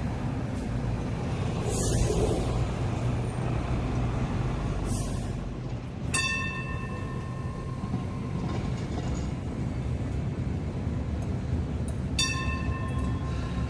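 Hong Kong Light Rail Phase 1 vehicle moving slowly through the depot with a steady low rumble. There are two short hisses in the first five seconds. A ringing, bell-like tone sounds twice, about six seconds apart, starting sharply each time.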